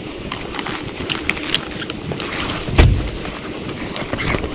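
Heavy rain on a tent: a steady patter with many sharp, scattered drop hits, and one loud low thump about three seconds in.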